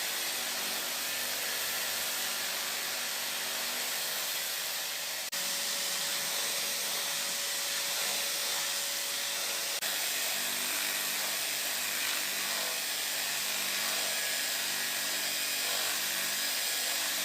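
Drill-press spindle drum sander running steadily with a high, hissing whir, broken by two brief cuts.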